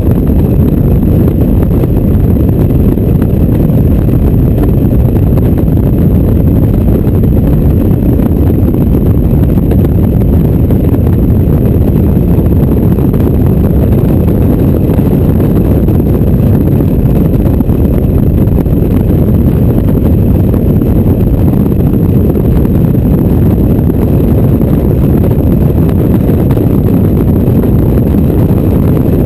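Mazda MX-5's four-cylinder engine pulling hard at speed with the roof down, its note blended with wind buffeting the open cockpit into a loud, steady low rumble with no clear gear changes.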